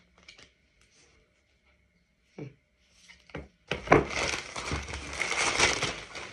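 Plastic mailer bag and wrapping crinkling loudly as a sandal is pulled out of it, starting a little past halfway after a couple of light clicks.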